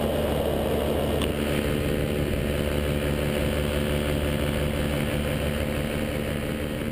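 Top 80 single-cylinder two-stroke paramotor engine running steadily at cruise power in flight, a constant drone.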